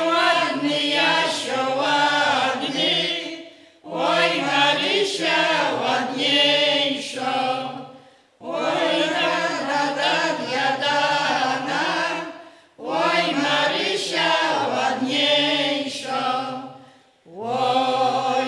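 Mixed folk choir of women's and men's voices singing a Polish folk song a cappella, in long phrases broken by short pauses for breath about every four to five seconds.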